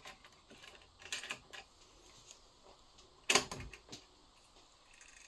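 Light plastic clicks and one louder clatter a little over three seconds in, from a MiniDisc being handled and loaded into a Yamaha MD8 MiniDisc multitrack recorder.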